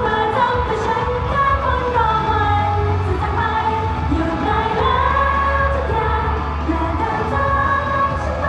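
Live idol pop song played loud through a concert PA, with female vocals singing the melody over a steady bass line.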